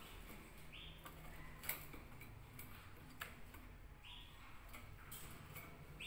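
Canaries in a wire cage: two short, faint chirps and scattered sharp ticks as the birds hop on the perches and cage wire. The loudest tick comes about a second and a half in.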